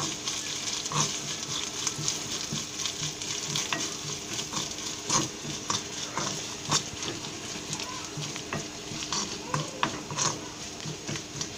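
Grated coconut, white sesame seeds and mustard seeds sizzling in hot oil in a kadai while being stirred and sautéed, a steady frying hiss with frequent short clicks and scrapes.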